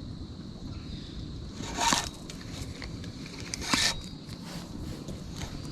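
Two short crunching rustles about two seconds apart, over a faint steady high-pitched whine.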